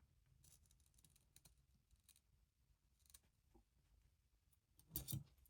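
Near silence broken by faint scattered clicks of metal tweezers positioning a motor wire, with a brief louder cluster of taps near the end.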